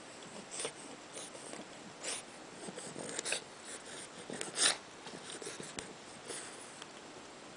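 Bulldog puppy snuffling and snorting with its face pushed into a shaggy rug, in short irregular noisy bursts, the loudest a little past halfway.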